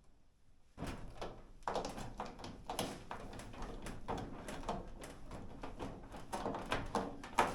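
A screw turned by hand into a tight plastic post on a GE dryer's front panel, creaking and grinding in short, irregular strokes starting about a second in. The owner takes the stiffness for screws too big for the plastic posts.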